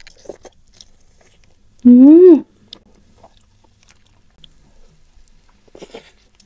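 Close-miked chewing and biting of crispy fried chicken, with faint wet mouth clicks and crackles. About two seconds in comes one short, loud hummed 'mmm' that rises then falls in pitch.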